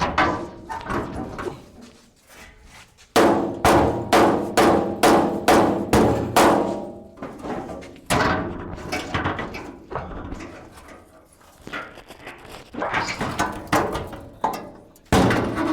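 Repeated hammer blows on the truck's sheet-metal cab, about two a second, in several runs with short pauses between. Each blow rings like steel.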